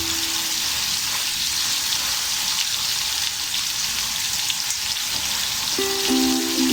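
Steak sizzling steadily in a hot frying pan, a continuous frying hiss with a few small pops. Background music comes back in near the end.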